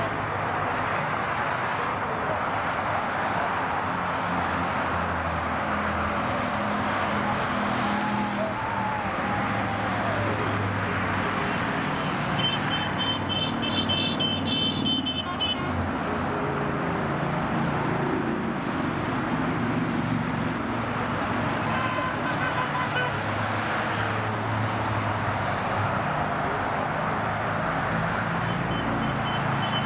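Motorcycle engines running amid road traffic noise, with a horn tooting for a few seconds about halfway through and again briefly near the end.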